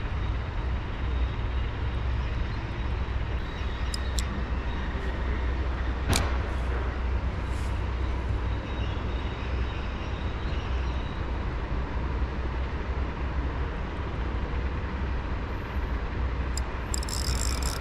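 Strong wind buffeting the microphone outdoors: a steady, low rumbling rush that rises and falls in gusts, with one sharp click about six seconds in.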